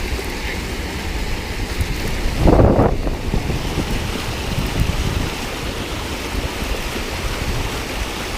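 Steady rush of flowing, rain-swollen water with wind buffeting the microphone, and one louder burst about two and a half seconds in.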